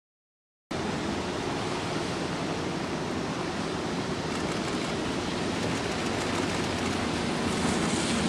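Silence for just under a second, then a Toei 10-000 series commuter train rolling slowly past at close range: a steady rumble and hiss that grows slightly louder near the end.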